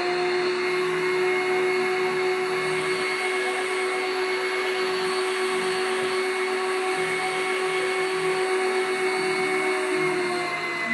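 Home-built central vacuum unit running with a steady turbine whine over a rushing hiss, drawing against its sealed ducts during an airtightness test. The pitch climbs as it spins up at the start and sags slightly near the end.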